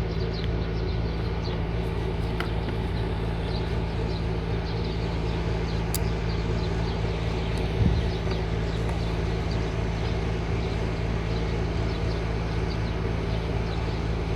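Steady background machine hum, with a single thump about eight seconds in.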